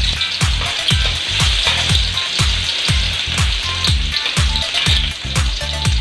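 Minced garlic sizzling in hot oil in a metal wok, stirred with a metal ladle that scrapes and clicks against the pan. A low thumping beat of background music, about two a second, runs underneath.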